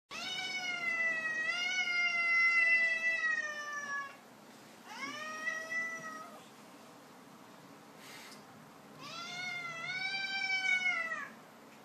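Ginger domestic cat giving three long, drawn-out yowls, the first about four seconds long, each wavering in pitch. They are the angry warning yowls of a cat fed up with being teased.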